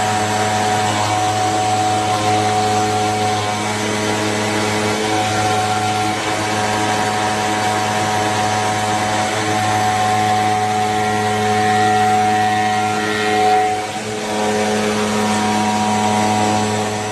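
An electric metalworking machine running steadily with a constant electric-motor hum under a grinding, sawing-like mechanical noise.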